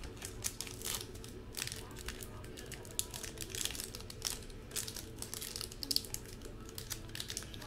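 Foil trading-card pack wrapper crinkling and tearing as it is worked open by hand, in irregular sharp crackles.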